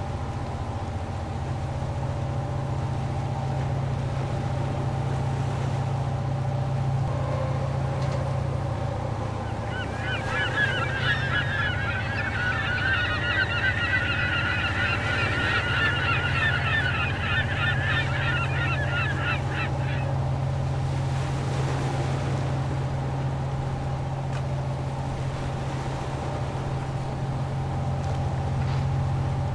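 Steady low machine hum, with a flock of birds calling rapidly over it for about ten seconds in the middle.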